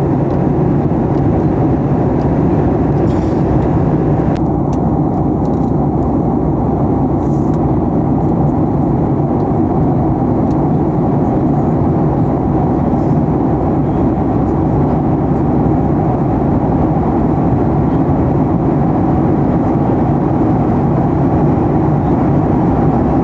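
Steady cabin noise of a Boeing 737 MAX 8-200 in flight, the LEAP-1B engines and rushing air heard at a window seat as a deep, even roar. The higher hiss eases slightly about four and a half seconds in.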